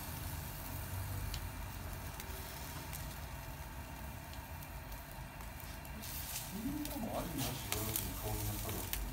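Yakitori skewers sizzling over a commercial gas grill: a steady hiss over a low rumble, with a few light clicks.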